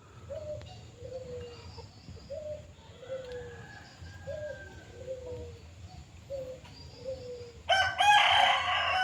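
Low, repeated two-note bird calls about once a second, then a rooster crowing loudly near the end.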